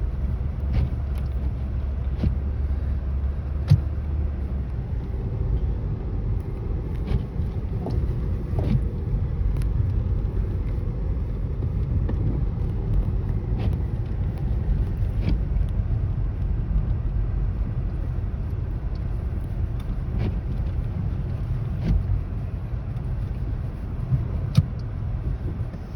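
Car cabin noise while driving on snowy roads: a steady low rumble from the engine and tyres, with scattered sharp ticks at irregular intervals.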